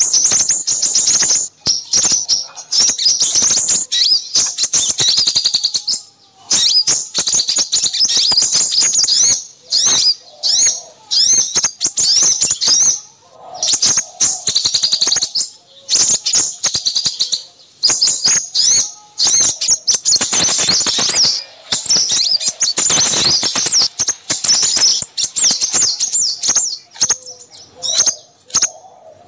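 Small songbirds chattering in a busy lure recording: rapid, high-pitched chirps and trills in bursts a few seconds long with short breaks, and a few lower notes mixed in.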